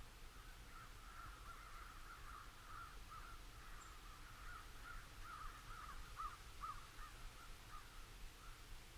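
Faint flock of birds calling, many short calls overlapping, busiest a little past the middle.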